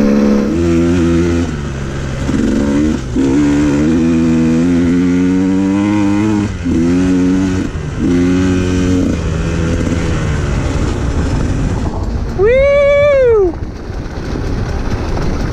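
Single-cylinder two-stroke engine of a 2019 KTM 150 XC-W dirt bike with an FMF Turbine Core 2 silencer, ridden while being broken in: it holds steady revs with short dips between gears. Near the end it revs up sharply and drops back in one quick blip.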